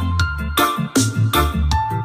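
Reggae music playing through a home sound system, with a strong bass line, a steady beat and repeated keyboard chords.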